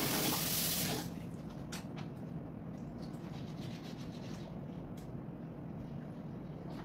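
Kitchen tap water running, shut off about a second in, then a knife scraping and cutting goat liver on a cutting board, with a few light knocks of the blade on the board.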